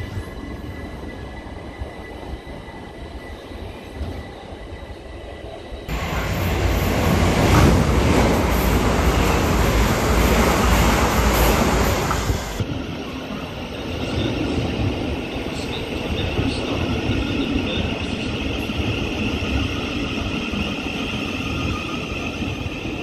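A Southern Class 377 electric multiple unit pulling out along the platform, getting loud for about six seconds as it gathers speed and cutting off sharply as its last coach clears. It is followed by a Thameslink Class 700 electric train rolling along the platform with a steady high whine.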